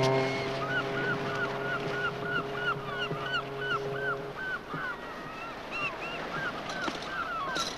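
Seagulls calling over and over in short falling cries, about two a second, over a hiss of sea. A low steady horn tone sounds with them and stops about four seconds in.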